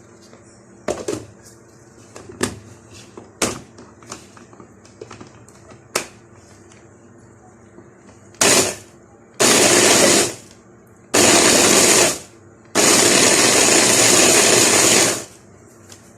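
Hand blender pulsed in four bursts, the last and longest about 2.5 s, pureeing chopped hot green chili peppers with salt. Before the blending, a few light knocks and taps.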